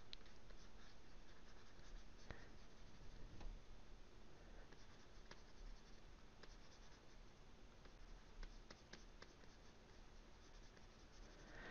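Faint scratching and light tapping of a pen stylus on a drawing tablet, with scattered small ticks.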